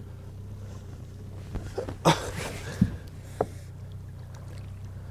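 A hooked fish splashing at the surface beside a boat while it is played in: one sharp splash about two seconds in, then a couple of short ticks. Under it runs the steady low hum of the boat's idling motor.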